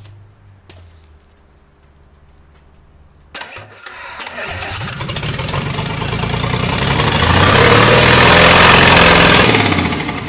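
Isuzu 6BD1 six-cylinder diesel engine, run out of its chassis, fires up suddenly about three seconds in. It grows louder and faster to a peak, then drops away near the end.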